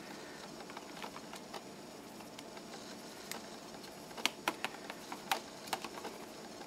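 Light plastic clicks of TI-84 graphing-calculator keys being pressed to call up and run a BASIC program: a few scattered presses, then a quicker run of clicks about four to six seconds in.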